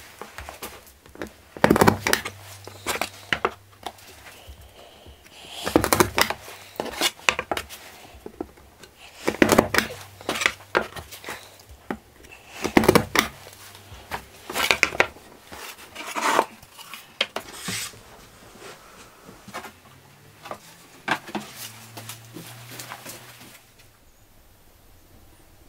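Sharp metallic clacks from a metal-tipped hand tool pressed against a pine picture frame, coming at uneven intervals a second or two apart and stopping about two seconds before the end.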